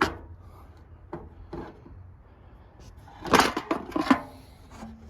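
Handling noises: a few light knocks, then a louder rustling clatter about three seconds in.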